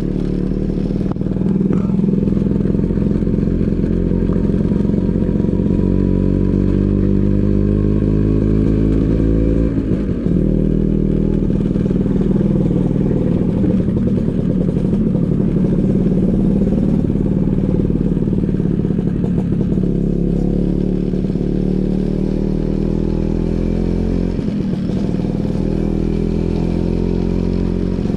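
Vespa PX 150's two-stroke single-cylinder engine running under way through a DRC Victory Racing aftermarket exhaust, a steady loud drone. Its pitch dips briefly and picks up again about ten seconds in and once more near the end.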